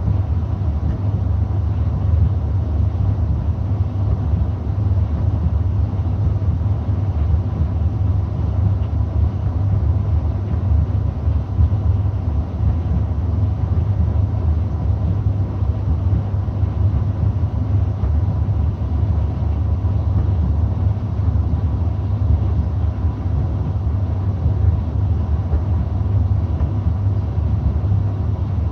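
Gorenje D85F65T tumble dryer running with a steady low hum that does not change.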